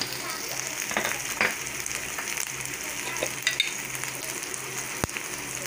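Sliced onions, curry leaves and mustard seeds sizzling steadily in hot oil in a frying pan, with a few scattered clicks and one sharper click about five seconds in.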